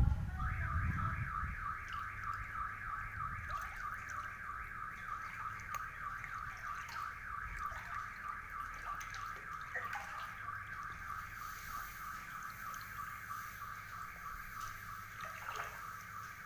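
Car alarm sounding: a rapidly warbling electronic tone that starts about half a second in and keeps going without a break.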